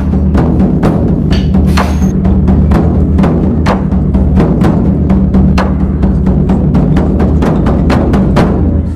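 Percussion-driven background music: sharp drum hits, about four a second, over a steady deep bass.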